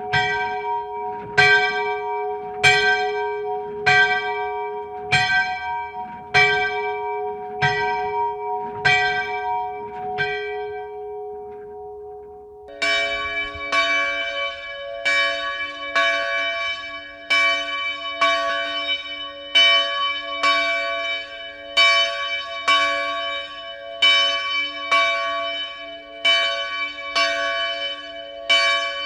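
Church bell tolling, struck about every second and a quarter, each stroke ringing on into the next. The strokes stop about ten seconds in and the ringing fades. A little after twelve seconds a lower-sounding bell takes over, struck faster, about every two-thirds of a second.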